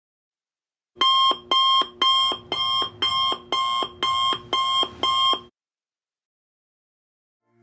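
Electronic alarm beeping: nine short two-tone beeps, about two a second, that stop abruptly.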